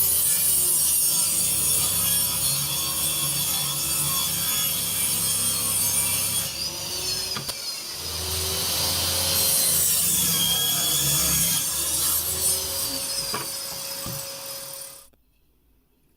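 A hand tool scraping continuously through material, cutting off suddenly about fifteen seconds in.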